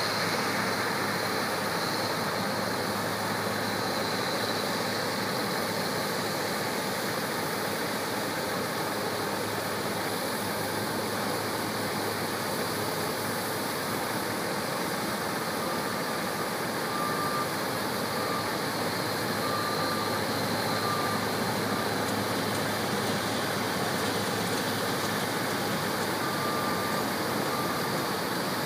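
New Holland combine harvester unloading grain through its auger into a trailer pulled by a running New Holland T7 tractor: a steady, even drone of engines and pouring grain. A few short faint beeps come in the second half.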